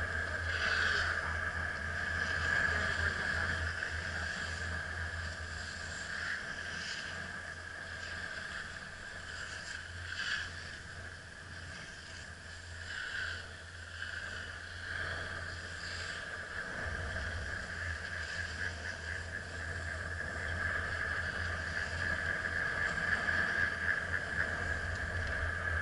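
Steady low rumble with a constant high hum while riding a chairlift, the rumble of wind and lift movement on the camera's microphone. A few faint clicks and knocks come and go, and the low rumble thins out briefly partway through.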